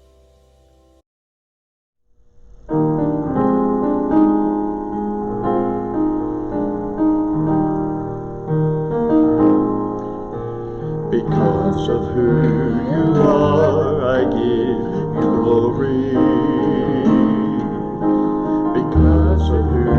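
A piano-sounding keyboard starts playing sustained chords after a brief silence, as the introduction to a worship song. About halfway through, the playing grows fuller, with a wavering melody line over the chords.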